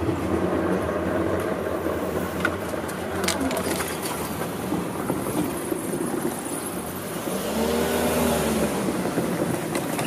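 Steady rumble of a yellow Seibu Ikebukuro Line commuter train running away along the track, heard from the level crossing. About eight seconds in, a motor's pitch briefly rises and falls.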